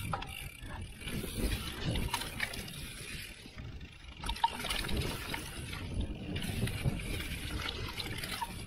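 Mountain bike running fast over a dry, leaf-covered dirt trail: tyres crunching through the leaves and the bike rattling over bumps, with wind rumbling on the action camera's microphone. A sharp knock comes about four and a half seconds in.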